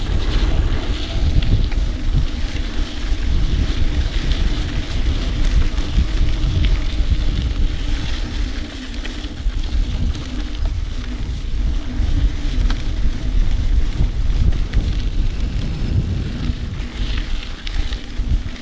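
Mountain bike ridden over a dirt cross-country trail: wind buffeting the action camera's microphone over a steady low rumble from the tyres, with frequent small clicks and rattles from the bike over rough ground.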